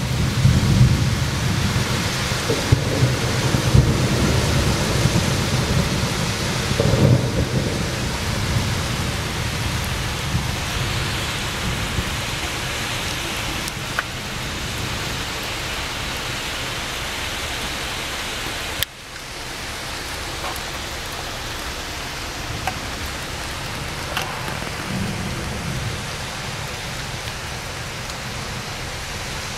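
Thunder rumbling heavily and rolling through the first several seconds over the steady hiss of rain. Then the rain carries on with a softer roll of thunder near the end.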